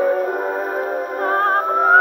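Soprano singing with orchestra from a 1920 Pathé vertical-cut disc, played through an adaptor on a 1914 Victrola IX acoustic phonograph; the sound is thin, with no bass. She holds notes with wide vibrato, breaks off briefly about a second in, then glides up into a new phrase.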